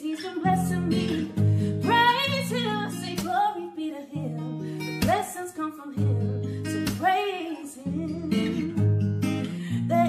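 A song with acoustic guitar and a singing voice.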